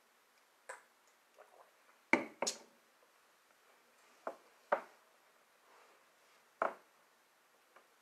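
A few scattered knocks and taps from hands handling things on a table, about seven in all, the loudest two close together a little after two seconds in.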